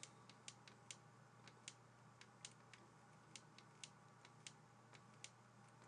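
Faint, irregular ticks of a pen stylus tapping on a writing tablet during handwriting, over near silence.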